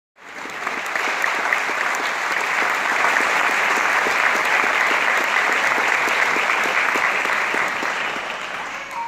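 Audience applauding, a dense crackle of many hands clapping that dies away near the end.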